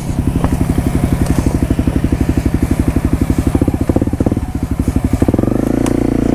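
2015 Honda CRF250L dirt bike's single-cylinder four-stroke engine, fitted with an FMF Powercore 4 slip-on exhaust, running steadily under throttle on a rough trail. The revs rise about five seconds in.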